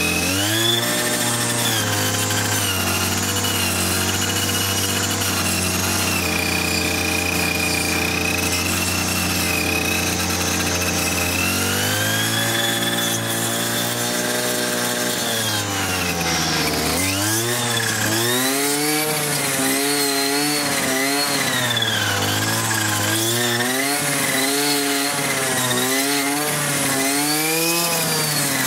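Brush cutter fitted with a circular saw blade, its motor running at a steady speed while the spinning blade cuts into a watermelon. Past the middle the pitch starts rising and falling about once a second as the blade is pushed into the melon and bogs down, then spins back up.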